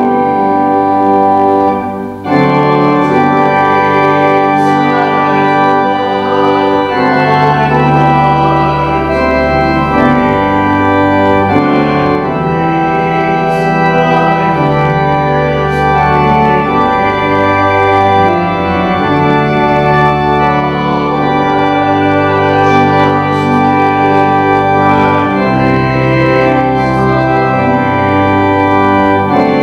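Church organ playing slow sustained chords over held bass notes, the chords changing every few seconds, with a brief break about two seconds in.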